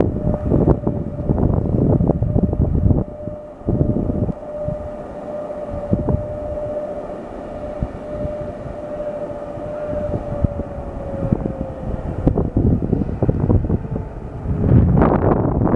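VR Sr1 electric locomotive hauling an InterCity train approaches slowly, arriving at a station. A steady whine slowly drops in pitch after about ten seconds as the train slows, and the rumble of wheels on rails grows louder near the end as it draws close. Wind buffets the microphone.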